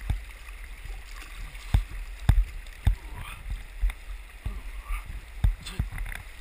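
Whitewater rapids rushing around a swimmer at water level, broken by irregular thumps and splashes as waves wash over the camera.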